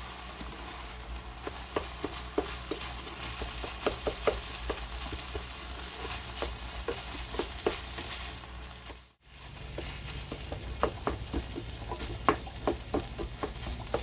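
Ground sausage meat frying in a ceramic skillet, stirred and scraped with a plastic spatula in many short scrapes and taps against the pan. The sound drops out for a moment about nine seconds in.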